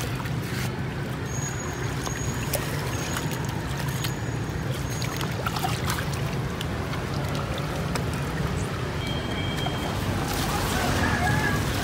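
Water sloshing and splashing as hands scrub a large grouper in a foam box full of water, over a steady low hum.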